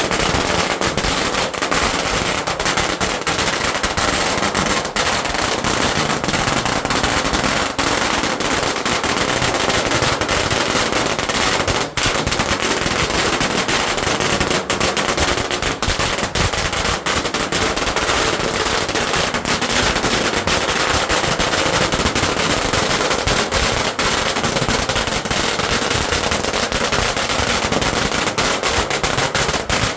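A long string of firecrackers going off in a continuous, rapid crackle of loud bangs, like machine-gun fire, without a break.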